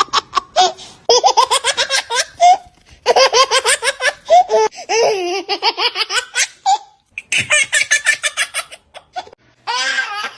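A baby laughing hard in several fits of rapid, high-pitched belly laughs, with short breaks for breath between them.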